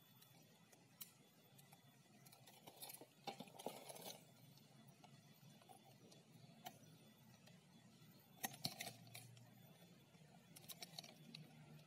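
Faint crackling and clicking of a shrink-wrapped cardboard toy box being handled and turned in the hands, with small clusters of crinkles about three seconds in and again past eight seconds.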